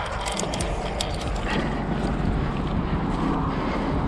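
Steady wind buffeting a body-worn camera's microphone, a dense low rumble with a few light clicks in the first second.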